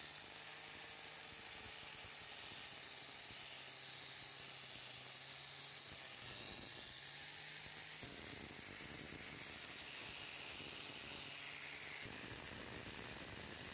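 Electric angle grinder with a red abrasive wheel running at speed, scrubbing rust off a steel bicycle frame: a steady high whine over a hiss, shifting slightly twice.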